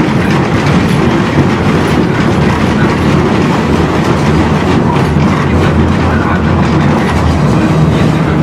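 Tram riding along street track, heard from inside the car: a steady, loud rumble of the wheels and running gear on the rails.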